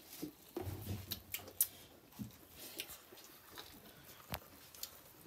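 Quiet eating sounds of people eating chicken curry and rice by hand: chewing and scattered small clicks and taps of fingers, bones and plates. Two sharper clicks stand out, about a second and a half in and again past four seconds, with a brief low murmur about a second in.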